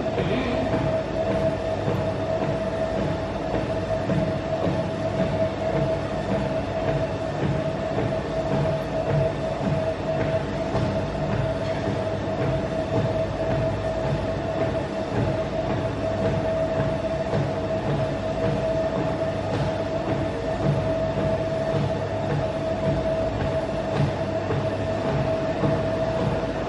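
A steady mechanical rumble with a constant mid-pitched hum over it, even in level throughout.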